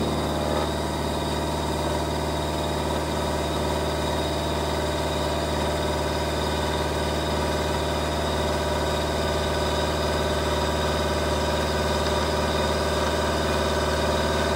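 Warco WM16B milling machine running steadily while its end mill cuts a 1 mm pass across the end face of a metal block held in the vise, a constant motor and spindle hum with the sound of cutting.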